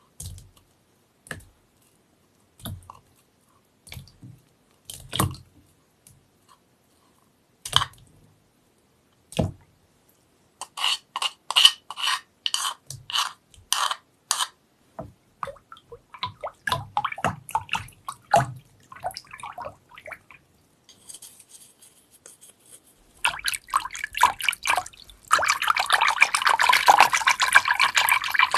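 Paper pulp being mixed into water: scattered single drips and splashes at first, then a run of quick splashing and knocking about ten seconds in. From about 23 seconds a loud, steady rush of water runs to the end.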